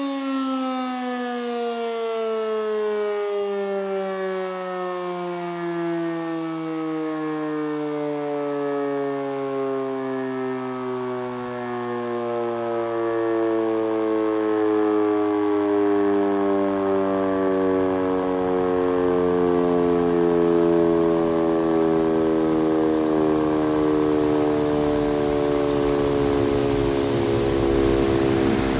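Civil-defence siren sounding for a siren test, its rotor winding down: one long tone with many overtones that sinks slowly in pitch, the fall easing off toward the end.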